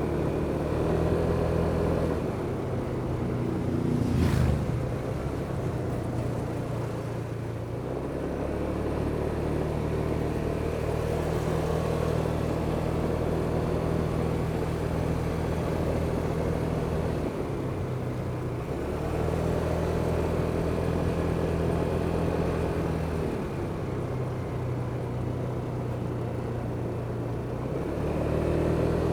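Kymco Superdink 300 maxi-scooter engine running under way, mostly at a steady cruising pitch. Its pitch drops and wavers from about two seconds in, with a short sharp noise around four seconds, then settles back to a steady pitch from about eight seconds in.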